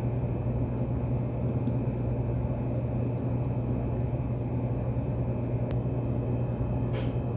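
Steady low mechanical hum with a noisy rumble beneath it: the video's unwanted background noise from a machine or engine running nearby, with a faint tick or two near the end.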